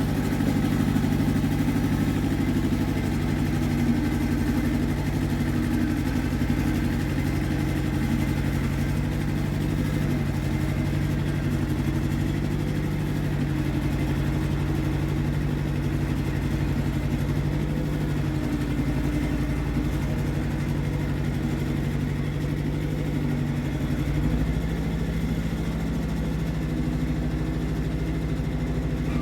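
Iseki TX1300 compact tractor's engine running steadily while ploughing, its pitch shifting slightly a couple of times in the second half.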